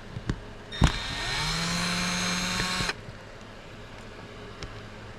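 Electric drill-driver starting with a click, spinning up and running steadily for about two seconds, then stopping abruptly, backing out one of the many screws holding the case together.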